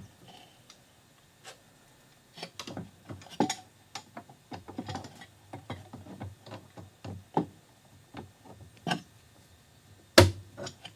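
Irregular light clicks and knocks of the wiper linkage and its new greased bushings being worked by hand, with a sharper knock about ten seconds in.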